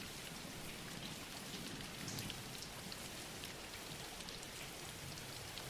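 Steady, gentle rain falling on a surface, a soft even patter with scattered individual drops.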